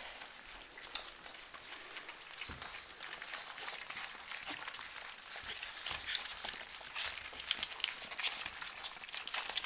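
A litter of young puppies eating from shallow metal pans: many quick, overlapping lapping and chewing clicks, with the odd tick of teeth or tongue on metal, growing busier and louder toward the end.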